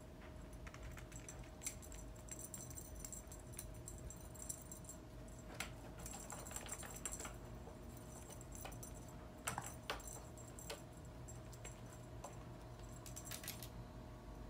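A cat at play with a feather wand toy and a mesh net: faint scattered clicks, taps and light jingling, with two sharper knocks about two-thirds of the way through.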